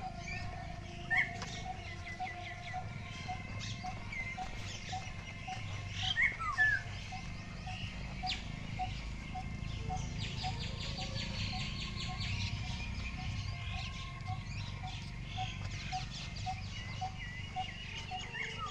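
Birds calling in the open: one repeats a short low note about twice a second throughout, while others chirp and whistle over it, the loudest a falling whistle about six seconds in. A low rumble runs underneath.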